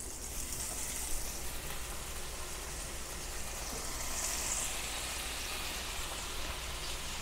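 Melted butter sizzling in a hot pan: a steady, soft hiss with a faint tick about a second in.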